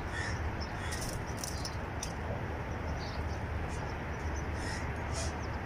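Short, high bird calls now and then over a steady low outdoor rumble.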